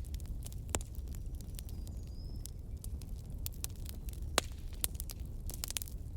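Bonfire crackling: irregular sharp pops and snaps of burning wood over a steady low rumble, with the loudest pops just under a second in and a little past four seconds.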